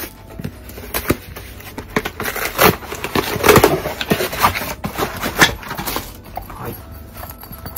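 Handling noise as a folded canvas-style tote bag is pulled out of a cardboard box and unfolded: rustling and scraping of cardboard and stiff coated fabric, with many sharp clicks and crackles, loudest in the middle.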